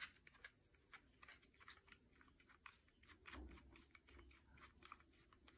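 Near silence with faint, scattered light clicks and taps of a plastic spinning-wheel bobbin being handled and fitted onto an electric spinner's shaft.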